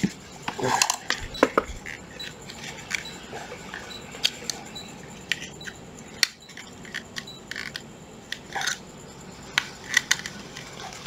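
Hard plastic and metal objects being handled: scattered clicks, knocks and light clinks, with no motor running. This is the handling as a cordless drill is readied for a test run.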